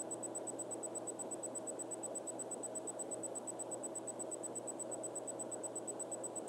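Steady background hiss and low hum of the recording itself, with a faint high-pitched tone pulsing rapidly and evenly. No distinct handling or snipping sounds stand out.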